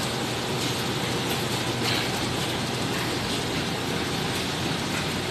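Steady machinery noise of a ship's laundry room: a low hum under an even hiss, without a clear rhythm.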